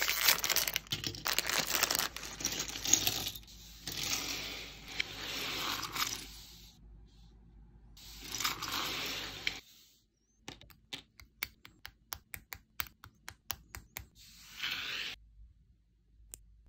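A sealed plastic pouch is torn open and crinkled in the hands for several seconds. In the second half come a quick run of sharp plastic clicks and taps from small model-kit parts being handled, then one short crinkle.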